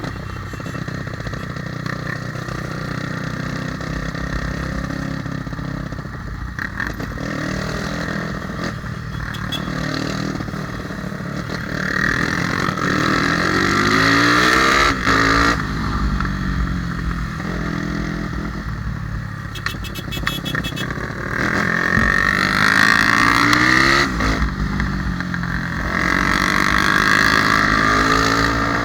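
Honda Tornado motorcycle's single-cylinder four-stroke engine, bored out to 293 cc, on its first test run. The revs rise and fall several times, dropping suddenly about halfway through and again about two-thirds through, and the engine is loudest when the revs are high.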